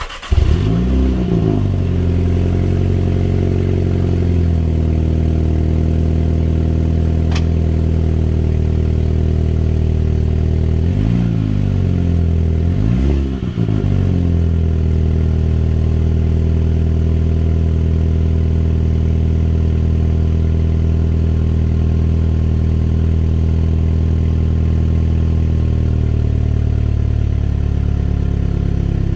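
A 2021 Mini Cooper JCW's turbocharged four-cylinder engine starts, in what the title calls a cold start. The revs flare up and fall back, then it settles into a steady idle through the exhaust. Two quick throttle blips come about eleven and thirteen seconds in, and the idle steps down slightly near the end.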